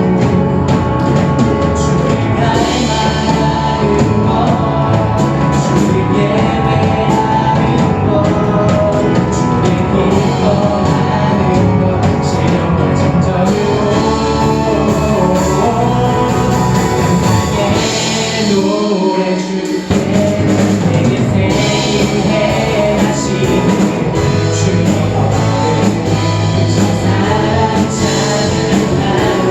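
A live worship band playing, with guitars, drum kit and voices singing. The bass and drums drop out for a moment about two-thirds of the way through, then come back in.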